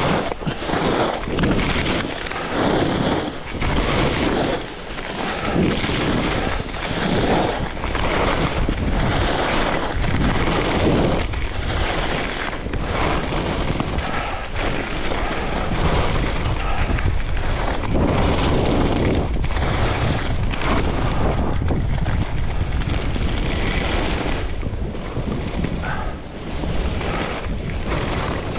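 Wind rushing over the microphone during a fast ski run, with the hiss of skis on groomed snow. The noise swells and fades about once a second in the first half, as the skier links turns, then grows steadier.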